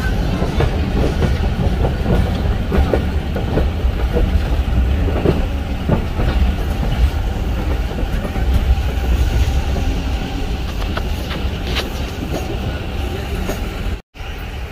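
Passenger train running at speed, heard from inside a carriage: a steady heavy rumble with irregular clicks and knocks as the wheels pass over the rails. The sound cuts out for a moment near the end.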